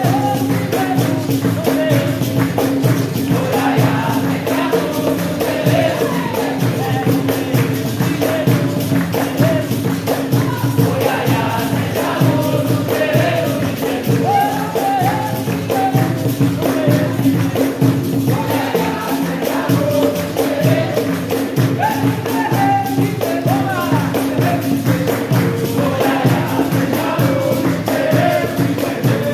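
Capoeira roda music: berimbau and pandeiro playing a steady rhythm under group singing.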